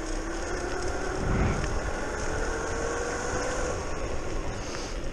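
Electric scooter's brushless outrunner motor whining as it rides, the whine climbing steadily in pitch as the scooter speeds up over the first few seconds, over a hiss of wind and tyre noise. A brief low rumble about a second and a half in.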